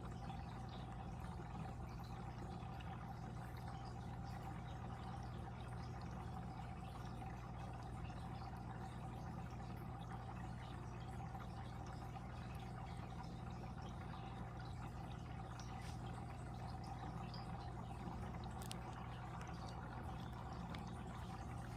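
Water flowing and trickling in an aquarium, steady and unbroken, over a low steady hum.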